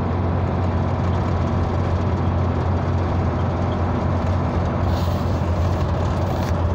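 Steady low rumble of tyre and engine noise inside a car cruising at highway speed, with a faint extra hiss for a second or so about five seconds in.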